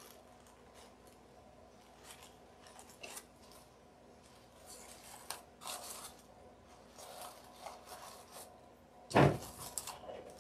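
Crinkled paper coffee filters rustling and crinkling softly in scattered spells as the wings are handled and pressed, with one louder knock about nine seconds in.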